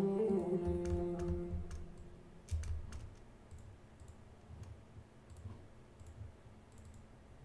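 The tail of a sung vocal note from the playback, pitch-shifted by the Harmony Engine plugin, fading out over the first second and a half. Then a handful of computer mouse clicks, some with a soft low thud.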